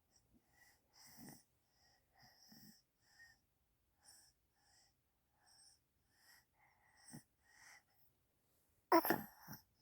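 Rapid, noisy breathing in short breaths about two a second, then a sudden loud burst of breath, like a sneeze or snort, near the end.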